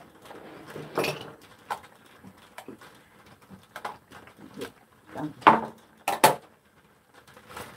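Tableware being handled: ceramic bowls and a metal ladle clinking and knocking against each other and the table in a handful of separate short clinks, the loudest about a second in and a cluster of three a little past halfway.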